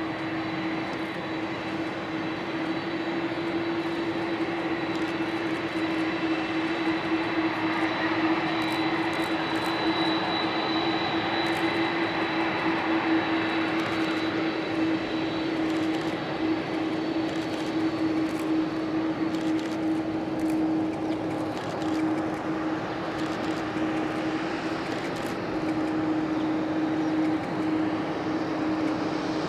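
Jet engines of a Boeing 747-400 running as the airliner rolls along the runway after landing: a steady mix of engine noise and whine with a strong low hum, without letting up.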